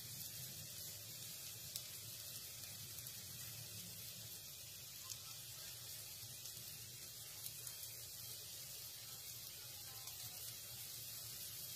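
Chopped garlic and sliced ginger sizzling in hot oil in a pan: a steady, soft hiss with a few faint pops.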